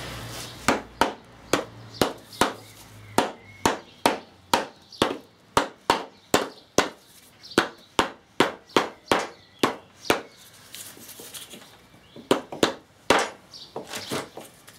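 Plastic hammer tapping the differential side cover of a VW 1303S gearbox down onto the casing, a steady series of sharp knocks about two to three a second. There is a short pause near the end, then a few more taps. The taps seat the cover square on its O-ring.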